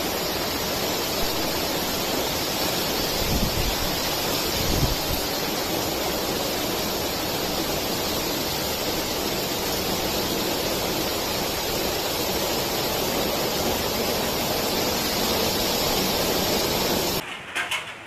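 Heavy monsoon rain pouring down in a steady, even hiss, swelling deeper twice a few seconds in. It cuts off abruptly about a second before the end.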